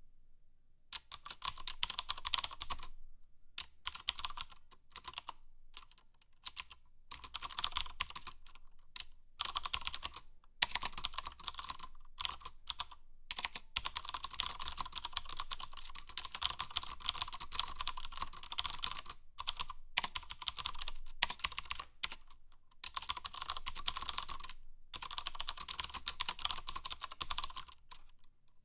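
Mechanical keyboard being typed on quickly: runs of sharp key clicks broken by short pauses of a second or less.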